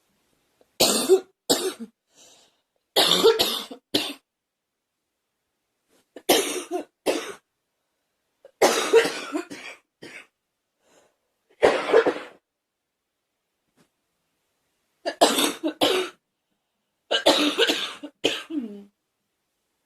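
A girl coughing in about seven separate fits, each a quick run of a few coughs, with pauses of one to three seconds between them.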